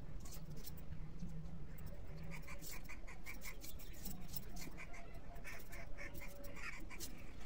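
A bird calls in quick runs of short repeated notes, twice, over faint ticks of a small knife cutting small vegetable pieces held in the hand.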